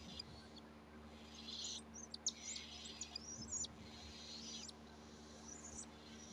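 Pet cockatiel making a series of raspy, hissing calls, with a few short chirps in the middle.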